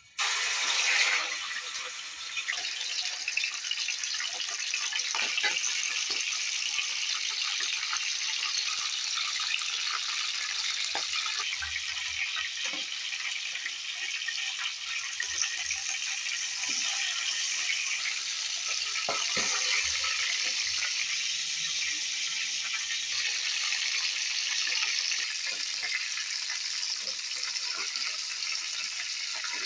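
Chicken pieces frying in hot fat in a metal pan: a loud, steady sizzle that starts suddenly as the chicken goes in. A few light clicks come from a metal spoon against the pan.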